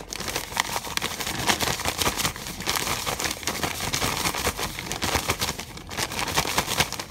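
Zip-top plastic bag crinkling and rustling as it is shaken and squeezed with a fish and dry fish-fry breading inside, a dense, continuous crackle that stops suddenly at the end.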